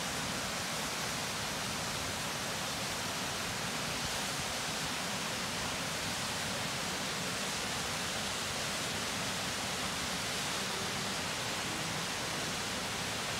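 Steady rushing of falling or fast-flowing water, a constant hiss with no change in level.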